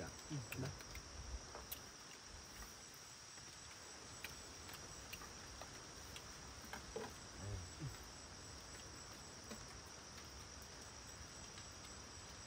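Steady high-pitched drone of insects such as crickets, with a few brief sounds that drop in pitch near the start and again about seven seconds in.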